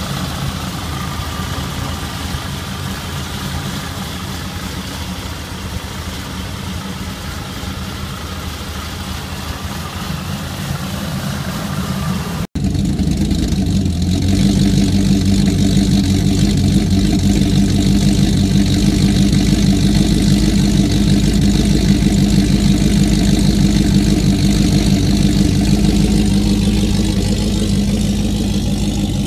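Supercharged 6.2-litre V8 of a Chevrolet Camaro SS, fitted with a Livernois Stage 2C camshaft, idling with a cam lope. It is heard first at the engine bay with a steady high whine over the engine note, then from the rear at the exhaust, where the low idle note is stronger and louder.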